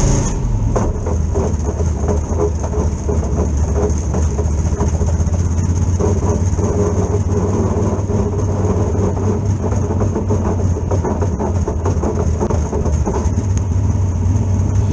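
Dirt super late model's V8 engine running steadily at low revs, an even deep rumble with a few light rattles, heard through the in-car camera inside the cockpit.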